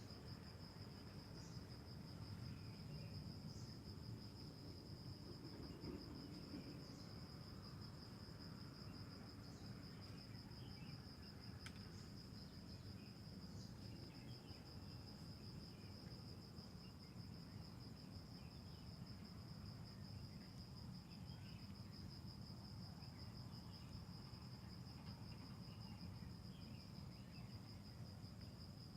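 Faint, steady high-pitched insect trill, the continuous chirring of a cricket-like insect, over a low outdoor rumble, with a few faint scattered chirps.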